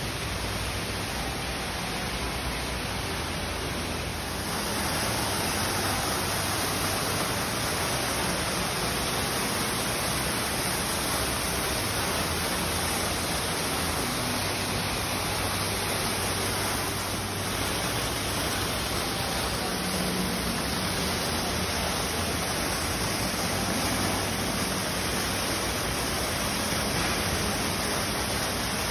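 Steady rushing and splashing of water from a fountain pouring into a pond, getting louder about four seconds in and then holding.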